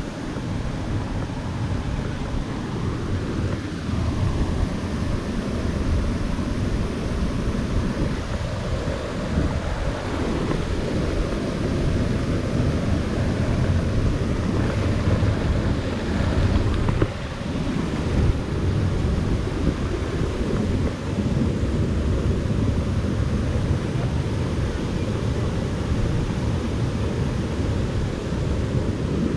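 Waterfall rushing steadily: a loud, continuous wash of falling water, heaviest in the low end.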